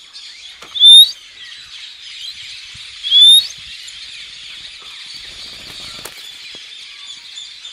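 A person gives two short, loud, rising whistles about two seconds apart: the recall signal for a pet rainbow lorikeet. This is followed by wing flapping as the bird flies in and lands on the arm.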